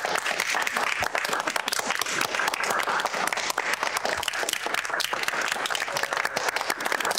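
A small group of people applauding: steady, dense hand clapping.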